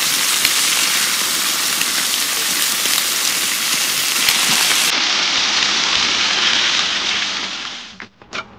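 Freshly grilled bacon-wrapped enoki mushrooms sizzling in a baking dish: a steady, dense crackling hiss that fades out near the end. It is followed by two light knocks.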